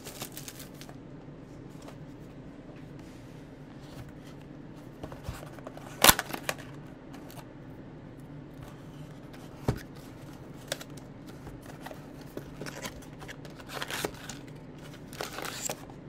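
A cardboard trading-card box and foil packs being opened by hand: scattered crinkles, cardboard rustles and small clicks, with one sharp snap about six seconds in and a lighter one a few seconds later.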